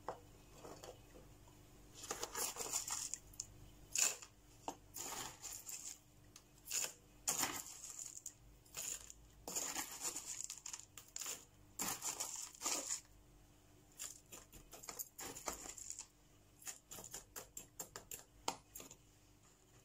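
A metal spoon scraping and scooping gritty cactus mix of pumice, lava rock and grit in a plastic tub, the grit rattling as it is tipped into a small plastic pot. The scrapes and rattles come in short, irregular strokes, sometimes several a second.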